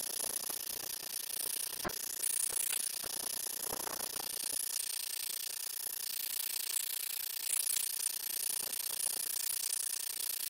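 Propane torch hissing steadily as it chars an oak board, with scattered crackles and clicks from the scorching wood surface.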